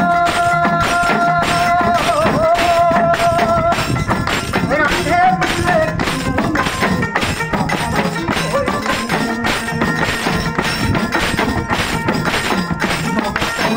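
Assamese folk song sung by a group of men over a steady beat of small hand cymbals and clapping. A long held note opens it, then gives way to the wavering sung melody.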